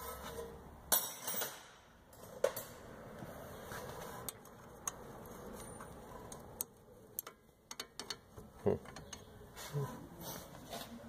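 Scattered metallic clicks and clinks of a hand wrench working on a rear brake caliper's mounting bolts, at irregular intervals a second or two apart.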